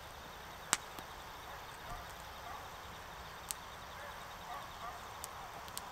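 Wood fire crackling in a small fire stand: a steady low hiss with a few sharp pops, the loudest about a second in.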